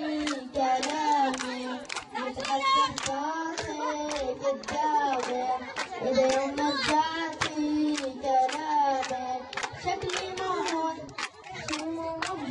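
A boy singing an Arabic song into a microphone in long held notes that waver and bend, while people clap along in a steady beat of about two to three claps a second.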